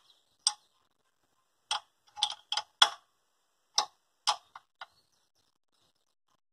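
About ten sharp metallic clicks and clinks in irregular groups from a metal tool working an injector line fitting on a diesel tractor engine that is not running. The fitting is being opened to clear an injector nozzle that is not delivering fuel.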